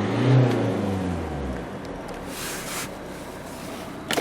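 Renault Laguna diesel engine revved once, its pitch rising quickly and falling back to idle within about a second and a half, then idling steadily. A brief hiss comes about two and a half seconds in.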